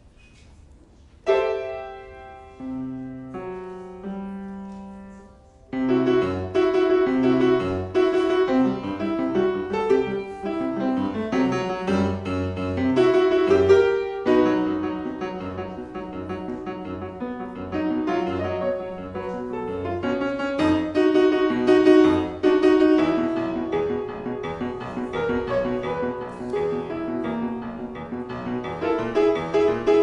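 Solo grand piano. After a brief quiet moment, a few slow held notes and chords sound about a second in, then quick, continuous playing starts about six seconds in and carries on.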